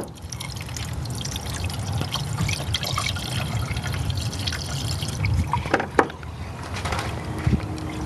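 Water being poured from a jug into a Chevy Astro's radiator, a steady gurgling fill, with a couple of knocks about six seconds in.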